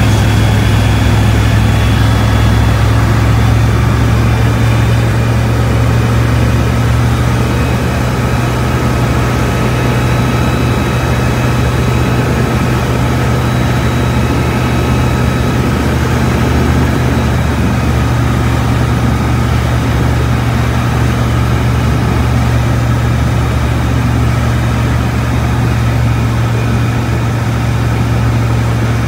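Kitfox 5 light aircraft's engine and propeller droning steadily, heard from inside the cockpit, during a slow approach and landing on grass.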